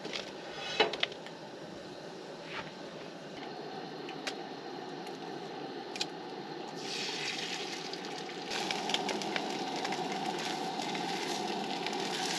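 Potatoes and eggs frying in a pan, a steady sizzle with a few sharp clicks. The sizzle grows louder and hissier about seven seconds in.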